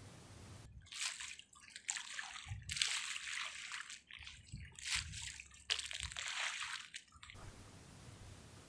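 Sea water sloshing and splashing against a concrete seawall in four or five short bursts with brief gaps between them.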